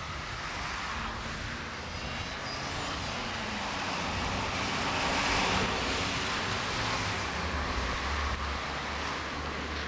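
Outdoor vehicle noise: a steady rushing sound with a low rumble that swells to a peak a little past halfway and then eases off, as of a vehicle passing.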